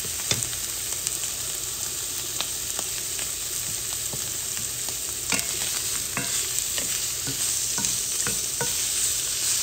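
Sliced steak frying in olive oil in a cast-iron skillet: a steady sizzle with sharp crackles here and there, and a wooden spatula now and then scraping and knocking the pieces around the pan.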